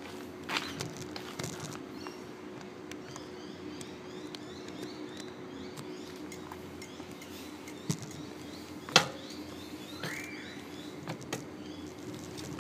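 Bicycle riding along a path, heard through a phone mounted on the handlebars: frequent rattles and knocks from the bike and mount over a steady hum, with one loud knock about nine seconds in. Faint bird chirps and a short rising whistle just after the loud knock.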